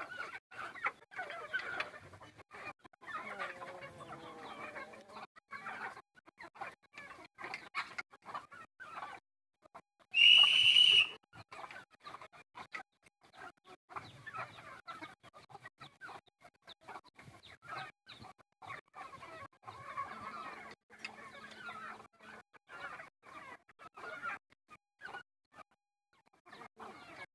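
A flock of domestic chickens clucking as they crowd around to be fed. About ten seconds in comes one loud, high-pitched tone lasting about a second, the loudest sound here.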